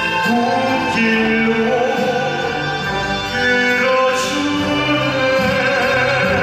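Male voices singing a crossover ballad in operatic style with long held notes, accompanied by a Korean traditional (gugak) orchestra.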